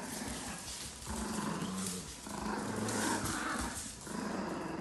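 Two puppies growling in play while tugging on a toy between them, in rumbling bouts of about a second each.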